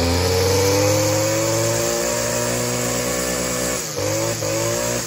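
Stihl KM 94 combi engine, a small two-stroke, freshly started from cold and running at high revs with the pitch creeping slowly upward. It dips and recovers about four seconds in, and the revs fall away near the end.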